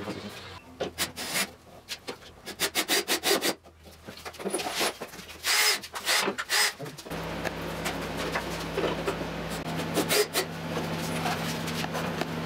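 Plywood gantry parts being handled and fitted together by hand: a quick run of knocks, clicks and wood rubbing on wood. About seven seconds in a steady low hum starts under continued handling noise.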